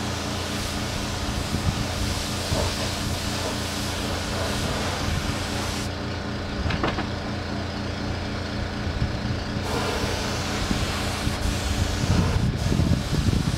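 Paint spray gun hissing as it sprays a coat, the hiss cutting out for a few seconds in the middle and resuming, over a steady low motor hum.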